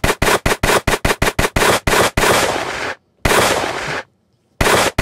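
Machine-gun fire sound effect played from a podcast sound pad: a rapid run of shots, about six a second, then two longer blasts that fade, with short silences between them, and the rapid shots start again near the end.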